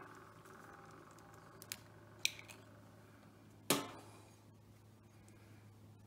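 A few small clicks of eggshell and crockery being handled, then one louder knock about two-thirds of the way in as an egg is cracked against the rim of a ceramic bowl, over a faint low hum.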